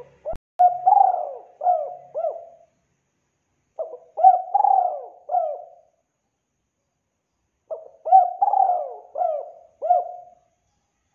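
Spotted dove (tekukur) cooing: three phrases of several quick coo notes each, every note rising and falling in pitch, with short pauses between the phrases.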